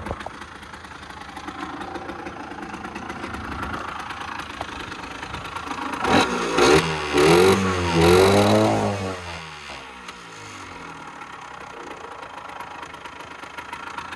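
Rieju RS 50 moped's 50cc two-stroke engine idling, revved a few times with quick throttle blips about six seconds in, then dropping back to idle. The owner feels the carburettor mixture is running a bit rich.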